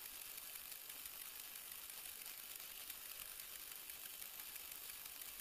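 Dry esparto grass stems rustling softly as they are handled and pulled through the hands, over a steady faint high hiss.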